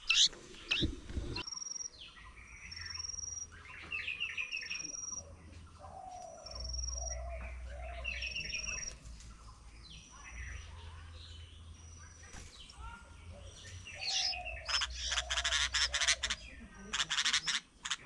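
Birds calling around a nest: a thin high note repeated about once a second, with chirps in between. Near the end comes a few seconds of dense, harsh chirping.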